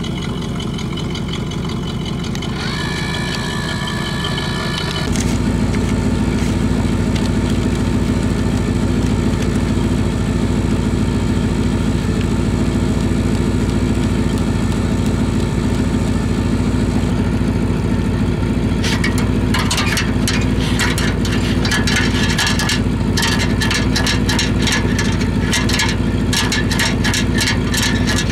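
SureFlow electric drain cleaning machine running steadily, its motor hum growing louder and deeper about five seconds in. From about nineteen seconds on, rapid rattling and clicking joins the hum as the spinning snake cable works inside the clogged exhaust tailpipe.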